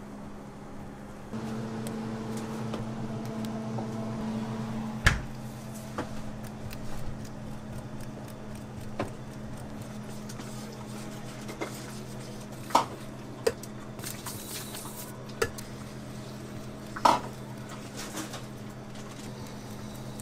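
Metal palette knife and scraper working cream cheese frosting on a cake, with soft smearing and about six sharp metal clinks. A steady low hum runs underneath, louder for the first few seconds.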